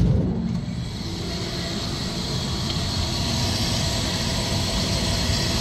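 Lennox L-Series rooftop unit's combustion air inducer (venter) motor running steadily in full heat mode, the pre-purge before the burners light, starting with a sharp click and growing slightly louder.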